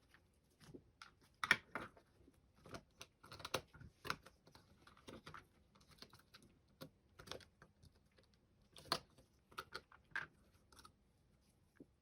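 Small plastic parts of a computer mouse being handled and taken apart: irregular light clicks and scrapes, a few of them sharper.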